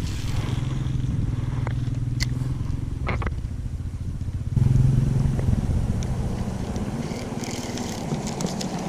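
A motor running, a steady low drone that grows louder about halfway through, with a few short clicks over it.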